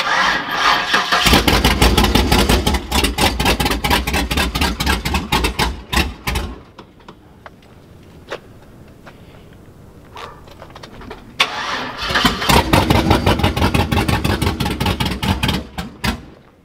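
Chevrolet Silverado pickup's engine cranking on the starter in two long attempts, about six seconds and then about four and a half seconds, each cutting off without the engine catching; the truck has been sitting for a while and may need a jump.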